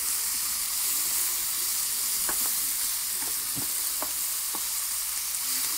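Beefburgers and banana slices sizzling steadily in a frying pan on high heat, frying in the burgers' own grease with no oil. A few light taps sound from about two seconds in.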